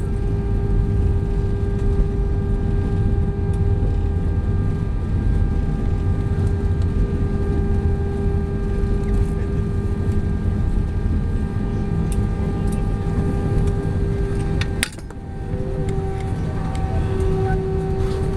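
Cabin noise over the wing of an Airbus A320-232 rolling out on the runway after touchdown: a steady rumble from its IAE V2500 engines and the wheels, with a steady engine whine on top. About 15 s in, a sharp click and a brief drop in the noise.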